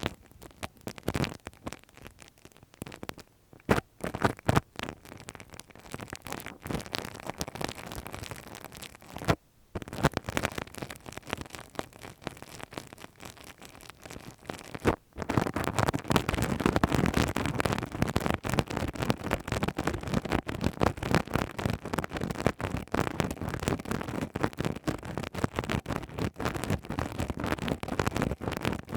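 Ear-cleaning ASMR sounds: tools scratching and rubbing against the microphone, a dense crackling of small scrapes and clicks. Patchy with short pauses at first, then denser and louder from about halfway through.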